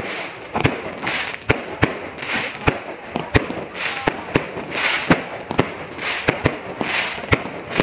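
New Year fireworks going off: an uneven string of sharp bangs, about two to three a second, over repeated swells of crackling from bursting shells.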